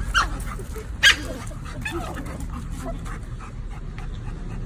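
A dog yipping and whimpering in a standoff over a bone: a short yelp falling in pitch just after the start, a sharper, louder yip about a second in, then softer whines.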